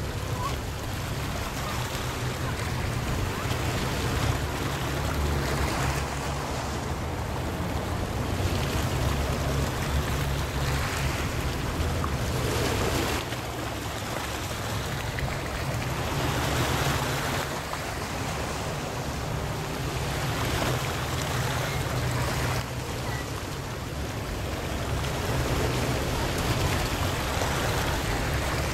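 Wind blowing over the microphone in gusts: a flickering low rumble under a steady hiss that swells and eases every few seconds.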